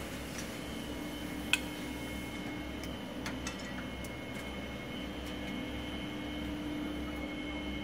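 PVC sheet extrusion line running: a steady machine hum with a constant low tone and a faint high whine. A few light clicks are scattered through it, with one sharp click about a second and a half in.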